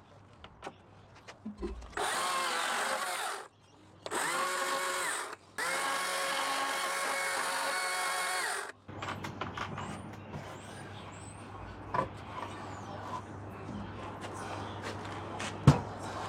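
An electric power tool run in three bursts of one to three seconds each, its motor whining up to speed at the start of each burst and cutting off abruptly, with no idle between. A sharp knock sounds near the end.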